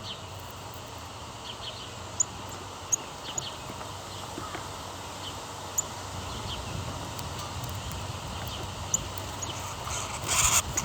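Small birds giving short, high chirps a few times, spaced a second or more apart, over a steady outdoor hiss. A brief burst of rustling noise comes near the end.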